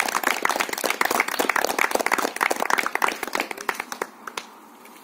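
A small group of people clapping, many quick irregular claps that die away about four seconds in.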